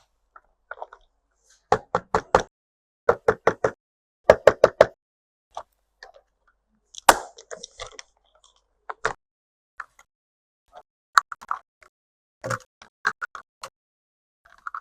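Plastic pieces of a toy doctor set being handled and tapped: short sharp clicks and taps, several in quick runs of about four in the first five seconds, then scattered single taps.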